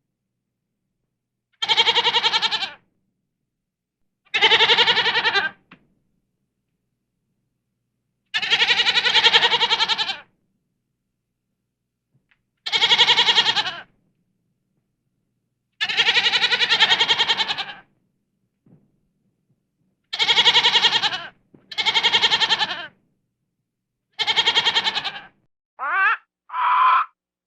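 A goat bleating: eight separate, quavering calls of one to two seconds each, with silent gaps between them. Near the end come a few shorter calls that slide in pitch.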